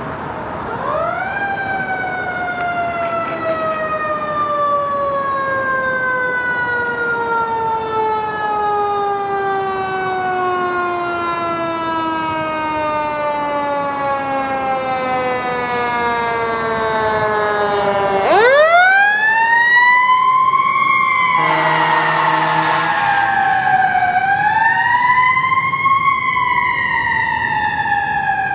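Fire engine siren on a code 3 run: it rises quickly to a high pitch, then falls slowly for about seventeen seconds before rising sharply again. A short, steady low blare sounds over it a few seconds after the second rise, then the siren rises and falls once more.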